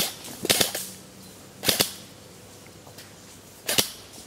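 Airsoft rifles firing short bursts of sharp cracks, four bursts of a few shots each.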